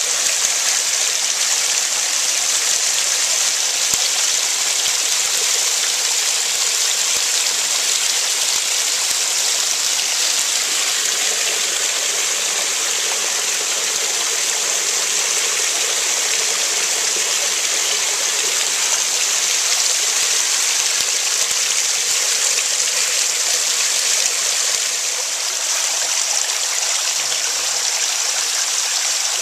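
A small creek waterfall: thin streams of water pouring over a mossy rock ledge and splashing onto the rocks and pool below, a steady, hissing splash.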